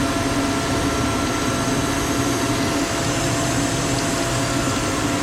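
Steady hum of running workshop machinery, an even rushing noise with a constant low tone and no change in level.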